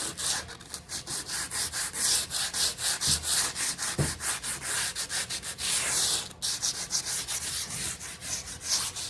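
Fine-grit sandpaper (150 to 180) rubbed back and forth over a water-damaged laminate drawer, smoothing the surface: a rhythmic scratchy hiss of strokes, about three a second.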